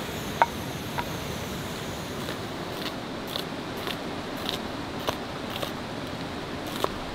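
Chef's knife slicing through an onion onto a wooden chopping board, a short crisp cut about every half second. Near the start, a couple of clicks from a wooden spoon against a pan. Under it all runs the steady rush of a river.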